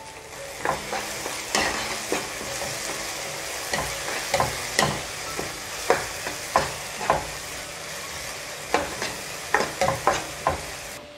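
Chopped onion and tomato sizzling in oil in a nonstick kadai while a spatula stirs them, with a steady frying hiss and frequent irregular knocks and scrapes of the spatula against the pan.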